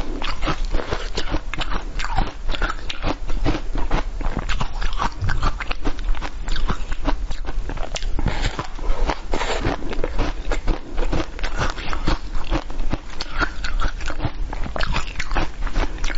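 Biting and chewing a crisp-shelled, watermelon-shaped dessert: a dense, continuous run of crackly crunching clicks.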